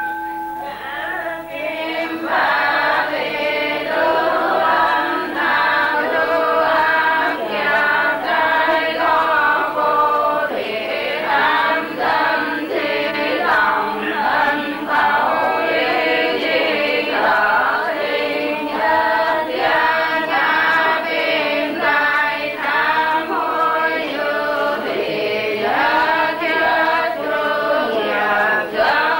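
A group of monks, nuns and worshippers chanting a Buddhist prayer together in a sung, melodic style, without a break.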